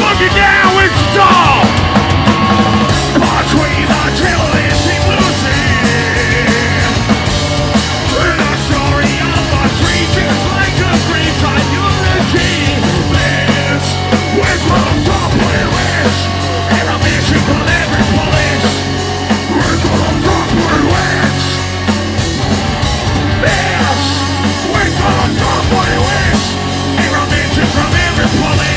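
Loud live heavy rock band playing: electric guitar, keyboard and drums through a club PA, with a singer shouting into a microphone.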